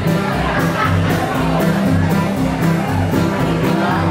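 Live band playing an upbeat instrumental passage with electric and acoustic guitars over a steady drum beat.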